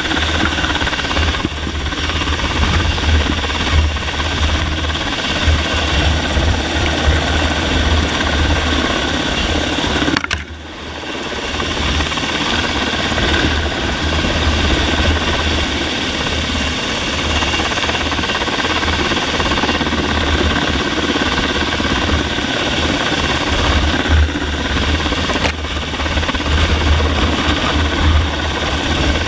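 Helicopter hovering low overhead: a steady, loud engine and rotor rumble with a pulsing low beat, and rotor wash buffeting the microphone. The sound briefly drops away about ten seconds in, then returns.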